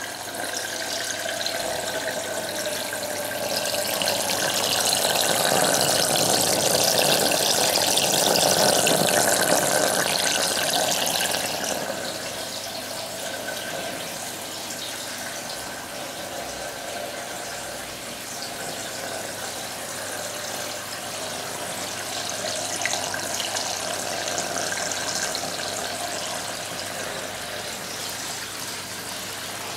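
Water running through a DIY aquarium overflow and its PVC drain pipes down to the sump, a steady noisy flow. It is louder for the first dozen seconds or so, then settles to a quieter steady level.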